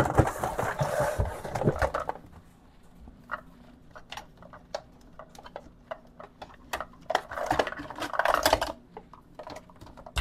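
Mini waffle irons being handled while rummaging for them: a clatter of knocks and rustling, then scattered single clicks and knocks, then a second longer clatter about seven seconds in.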